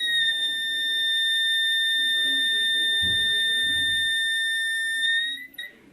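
Small electronic buzzer in a transistor-driven LDR light-sensor alarm circuit, sounding one continuous high-pitched tone because light is falling on the LDR. The tone holds steady, then rises slightly and cuts off about five and a half seconds in.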